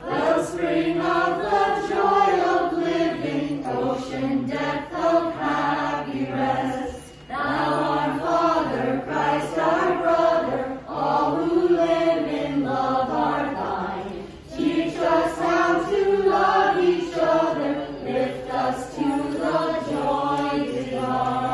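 A small mixed group of adult and child voices singing a Christmas carol together from songbooks, with short breaks for breath between phrases.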